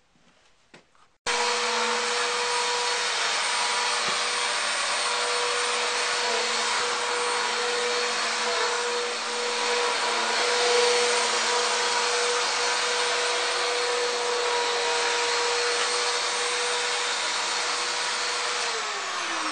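A vacuum cleaner switches on about a second in and runs steadily, its motor whining over the rush of air; near the end it is switched off and winds down, the whine falling in pitch.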